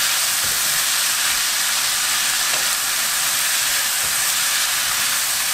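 Dried sweet potato stems sizzling steadily in hot oil in a nonstick wok as they are stir-fried with wooden chopsticks.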